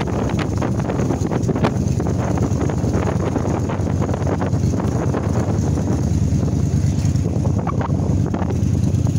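Wind buffeting the microphone on a moving motorcycle, over the steady low running of its engine, with irregular gusts.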